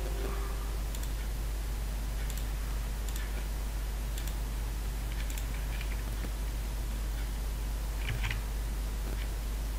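Sparse, irregular computer mouse clicks, about a dozen, over a steady low electrical hum. A short two-tone computer alert chime fades out in the first second, as a warning dialog appears.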